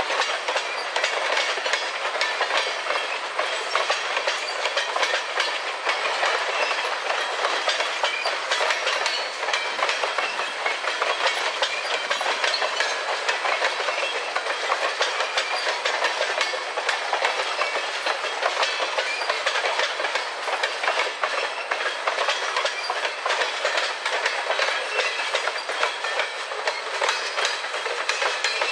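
Freight train of tank cars rolling past, its steel wheels clicking and rattling steadily over the rail joints.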